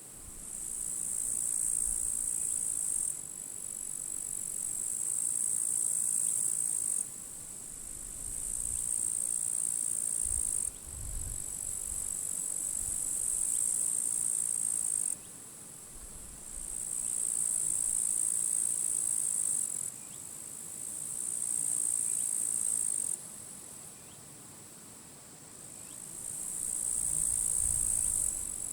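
Grasshoppers stridulating: a high, hissing buzz in phrases a few seconds long, one singer starting as another stops, with short breaks between. Wind gusts rumble faintly on the microphone now and then, most clearly about ten seconds in and near the end.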